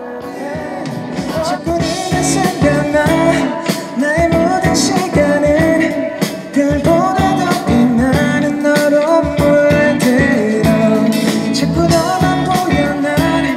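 Live band performance: a male singer sings a melody into a microphone over a band with a steady drum beat and guitar.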